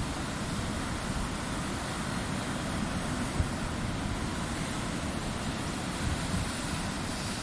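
Steady wind and surf noise from the sea, with low rumbling wind buffeting on the microphone.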